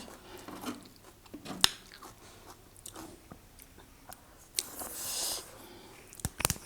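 A person chewing food close to the microphone, with small wet mouth clicks and smacks, a short breathy hiss about five seconds in, and a quick run of clicks near the end.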